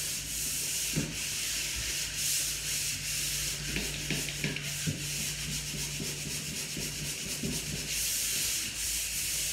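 100-grit sandpaper rubbing over dried drywall joint compound, lightly sanding down the first coat of mud on the taped joints, in repeated strokes.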